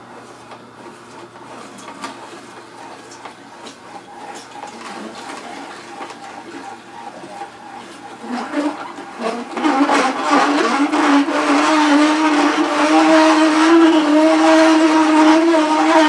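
Omega VSJ843 vertical slow juicer running as hard jicama pieces are fed into it. At first there is a fairly quiet motor hum and grinding. From about eight seconds in it grows much louder into a steady squeaking, creaking screech as the auger crushes the jicama. Jicama's hard texture makes it the loudest vegetable to juice, and the squeaking is normal for the machine.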